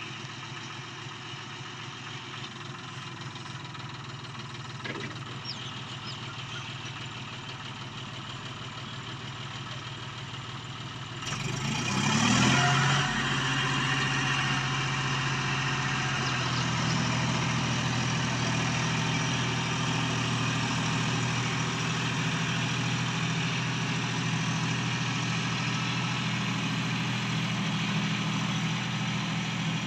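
John Deere 5310 tractor's three-cylinder diesel engine running steadily under load while driving a rotavator through soil. About 11 seconds in it gets louder, with a brief rise in pitch, then holds a louder steady drone.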